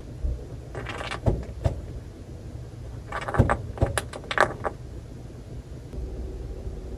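Green-cheeked conure moving against the camera in its cage, making two bursts of scratchy clicking and rattling, about a second in and again about three seconds in.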